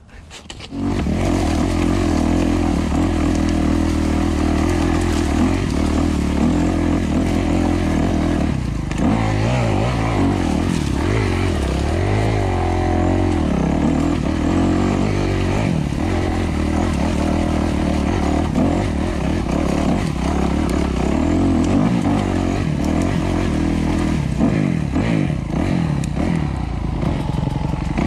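Kawasaki KX250F's four-stroke single-cylinder engine running under load as the dirt bike is ridden, its pitch rising and falling as the throttle is worked. It starts abruptly about a second in.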